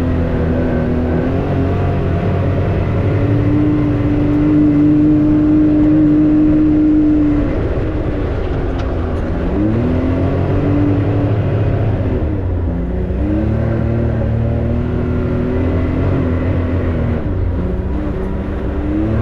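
Can-Am X3 side-by-side's turbocharged three-cylinder engine running under load on a trail. Its pitch holds steady and is loudest for the first several seconds, then falls and climbs again a few times as the throttle is let off and reapplied.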